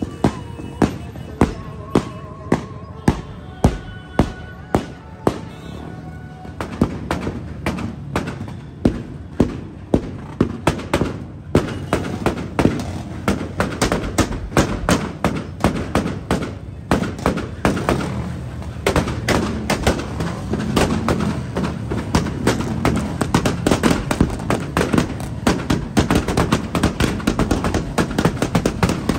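A rapid series of sharp bangs, about two a second and fairly even at first, then denser and more irregular from about halfway through. In the first few seconds they sound over music with held tones.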